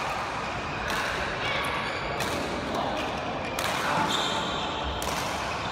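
Badminton rackets striking a shuttlecock in a rally: four sharp hits, about 1.3 seconds apart, echoing in a large sports hall.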